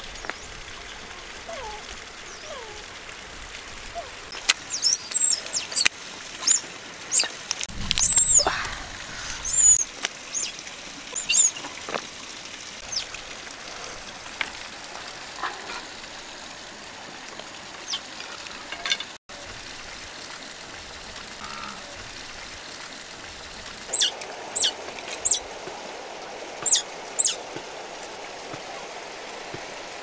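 Short, sharp high-pitched animal calls come in quick clusters, many of them in the first half and five more near the end, over a steady outdoor background hiss.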